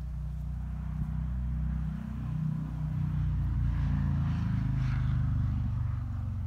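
A motor vehicle's engine running, a steady low hum that grows louder toward the middle and eases off near the end.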